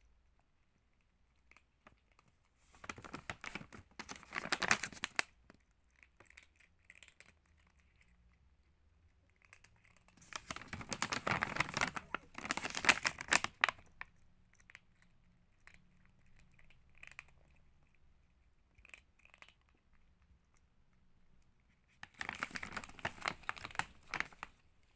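Crinkling of a plastic dry-cat-food bag being handled and shaken, in three bursts: about three seconds in, a longer one around the middle, and another near the end.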